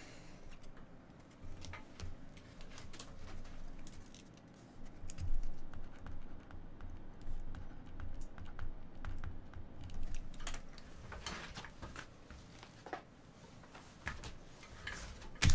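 Typing on a computer keyboard: uneven runs of keystrokes with soft knocks, pausing now and then.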